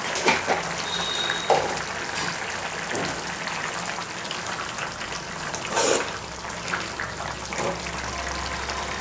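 Watery tomato curry bubbling in a pan on the stove, with a few light knocks from a spoon.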